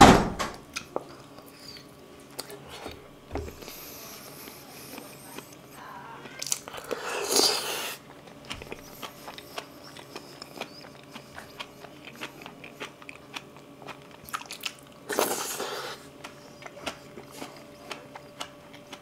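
Close-miked mukbang eating sounds: boiled potato and braised kimchi being chewed, with many small wet mouth clicks. A sharp click comes right at the start, and two louder, longer stretches of chewing come about seven and fifteen seconds in.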